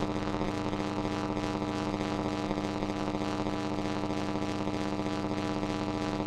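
A designed buzzing hum sound effect: a steady electric-sounding buzz with many overtones, holding one pitch without change.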